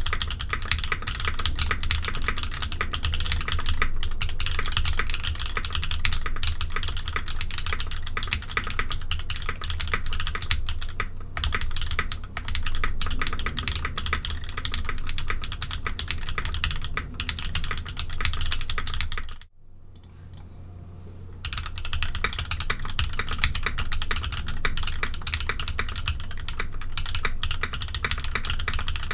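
Fast, continuous typing on a mechanical keyboard fitted with ABS keycaps: a dense run of clacky keystrokes. About two-thirds of the way through the typing stops almost to silence for about two seconds, then resumes.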